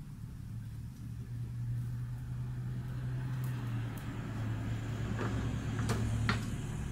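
Silicone spatula pushing shortbread cakes around a non-stick frying pan, with a few sharp clicks against the pan near the end, over a steady low hum.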